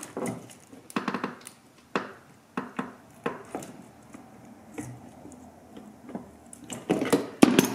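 Metal pry tool clicking and scraping against a car's windshield wiper arm as it is levered from side to side to free the arm from its spindle. Irregular sharp clicks about once a second, with a louder cluster of knocks near the end.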